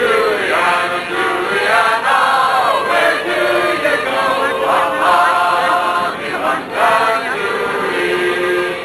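A group of voices, men's among them, singing together in chorus, with long held notes that slide between pitches.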